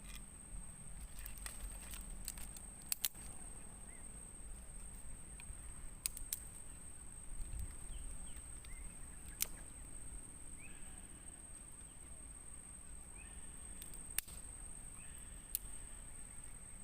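Outdoor ambience with a steady high-pitched whine and a low rumble, broken by a handful of sharp clicks or knocks and a few faint short chirps.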